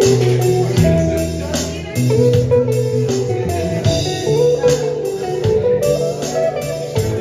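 Live instrumental jam: a Stratocaster-style electric guitar plays lead lines over an electric bass and an electronic drum kit keeping a steady beat.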